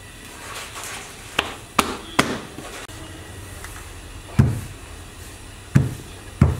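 Knocks and thuds on a floured bakery work table while a large sheet of puff pastry dough is handled and rolled: three quick, sharp knocks a little over a second in, then three heavy, deep thuds in the second half.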